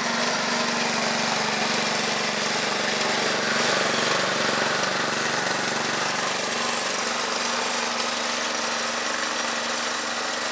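Small single-cylinder air-cooled gasoline engine on a homemade cable winch, running steadily at a low, even speed.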